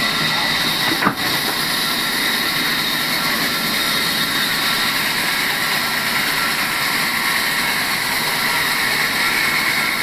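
Large sawmill band saw, driven by an electric motor, running at a steady whine while an old timber beam is fed through the blade and resawn.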